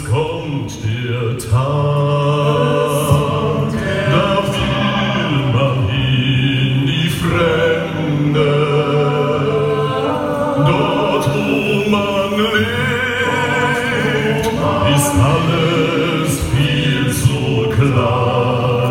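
Male vocal ensemble singing a carnival song medley in harmony, with deep low voices carrying under the melody.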